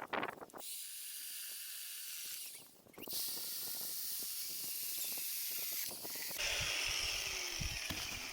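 Electric chainsaw running with a steady high hiss-like whine. It stops briefly about three seconds in, then runs again.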